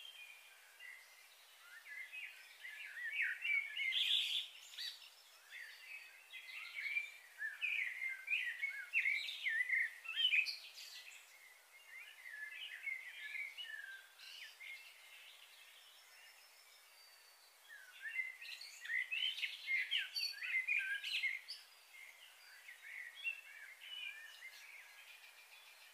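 Small birds chirping and twittering, many short quick calls overlapping. The calls are busiest through the first ten seconds and again around twenty seconds in, with a thinner stretch between.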